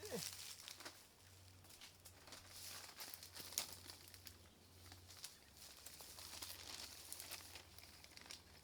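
Faint rustling and crinkling of branches, leaves and fruit being handled while wild plums are picked, with scattered light crackles.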